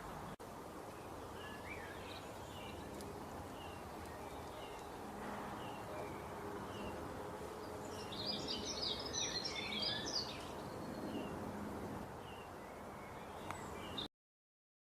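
Birds chirping over the steady rush of flowing water. One bird repeats a short high chirp about once a second, and a burst of busier birdsong comes about eight to ten seconds in. The sound cuts off suddenly about fourteen seconds in.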